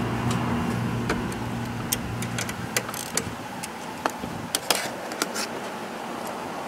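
Scattered, irregular metallic clicks from a ratchet wrench and bolts as the valve cover bolts of a GY6 150cc scooter engine are tightened. A steady low hum underneath fades out about two and a half seconds in.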